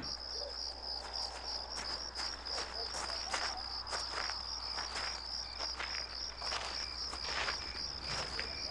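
A cricket chirping steadily, a few short high chirps a second, over a low steady hum and faint irregular scuffs.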